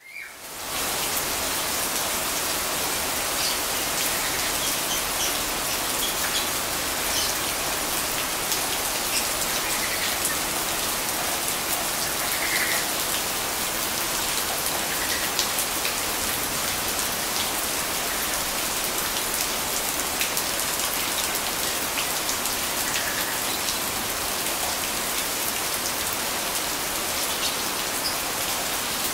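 Steady rain falling on roofs, plants and paving, with drops and runoff falling into a garden fish pond. The sound fades in over the first second, then holds as an even, unbroken hiss.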